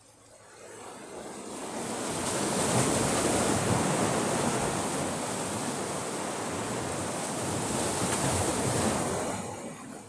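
Rough sea surging: the sound of breaking waves swells up over a couple of seconds, holds as a loud rushing wash, and dies away near the end.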